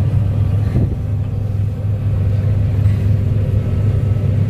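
Combine harvester running steadily at work in wheat, a deep, even engine hum with steady tones above it.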